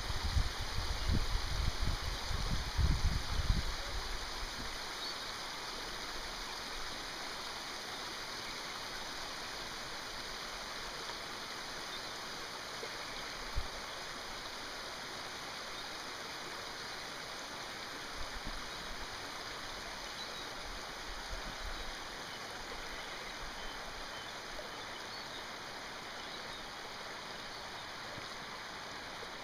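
Steady rushing sound of moving water, even and unbroken. Low wind buffeting on the microphone in the first few seconds, and a single light click about halfway through.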